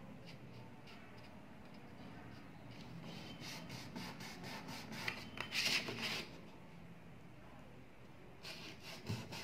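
A scoring tool scraping along cardstock to score fold lines: faint scratching strokes, with one louder scrape about five to six seconds in.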